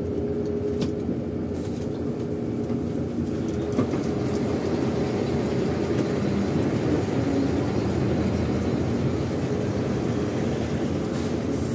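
Interior cabin noise of a King Long XMQ6871CY coach under way: a steady drone and rumble from the engine and road, with a constant low hum.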